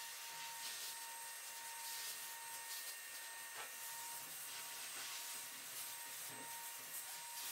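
Curved grooming scissors snipping through a dog's facial fur: faint, irregular snips over a steady background hiss with a faint high whine.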